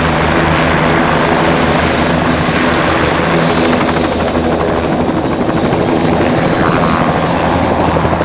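Bell 206 JetRanger turbine helicopter running on the ground with its two-blade rotor turning: a steady rotor beat under a high turbine whine that rises slightly in pitch about halfway through, as it runs up for lift-off.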